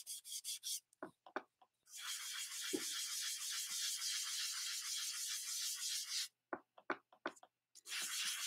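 Ink sponge dauber scrubbed quickly back and forth over embossed cardstock to bring out the raised pattern: a dry, scratchy rubbing in rapid short strokes. It stops twice, about a second in and again near the end, for a moment, with a few light taps.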